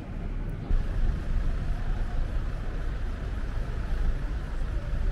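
City street traffic: vehicles running past with a steady low rumble that grows louder about a second in.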